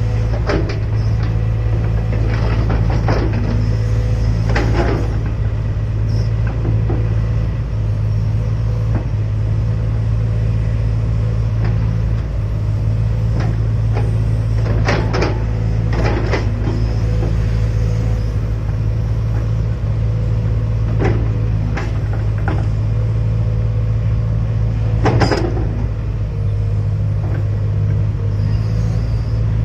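Hydraulic excavator's diesel engine running steadily under work, with scattered short knocks and clanks, the loudest near the end.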